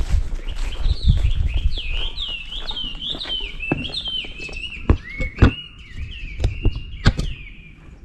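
A wild songbird singing a run of quick, repeated whistled notes, each sliding downward, about two to three a second, that turn into flatter, lower notes for the last couple of seconds. Wind rumbles on the microphone at first, and a few sharp clicks sound in the second half.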